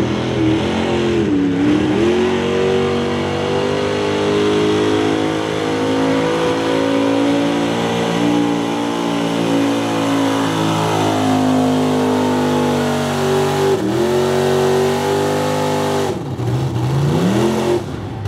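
Mega truck engine at full throttle pulling a weight-transfer sled, revs climbing and holding high. The revs drop sharply and climb back a few times, about a second and a half in, around fourteen seconds, and again near the end.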